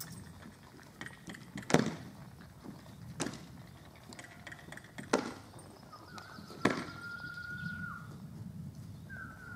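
Four sharp clicks a second or two apart, then a person whistling one long, steady note a little past halfway and starting another near the end.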